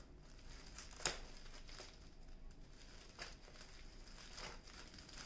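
Scissors snipping through plastic tubular bubble wrap, with faint crinkling of the plastic packaging. A few sharp snips, the loudest about a second in.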